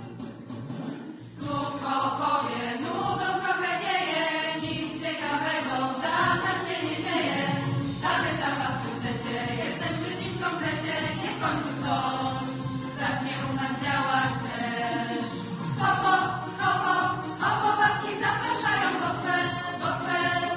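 Background music: a choir singing with instrumental accompaniment, starting about a second in after a brief quiet gap.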